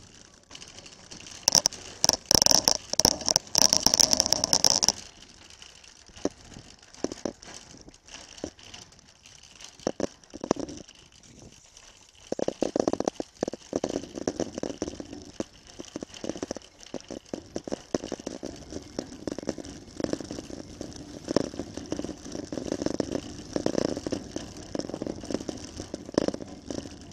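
Empty wire shopping trolley being pushed across a car park, its wheels rolling on the tarmac and the wire basket rattling. A dense clatter lasts for a few seconds near the start, then the rattle goes on unevenly.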